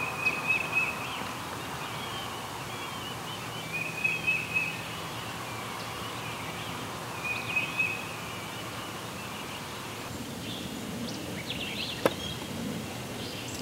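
A bird calling outdoors: three short trilled bursts about three and a half seconds apart, with fainter warbling phrases between them. A single sharp click near the end.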